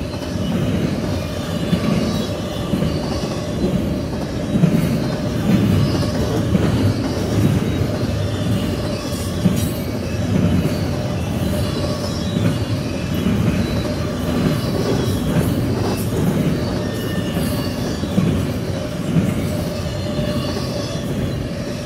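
Double-stack intermodal container cars of a CSX freight train rolling past at speed: a loud, steady rumble with wheels clattering in a repeating rhythm, and sharp high clicks and squeaks from the wheels on the rail.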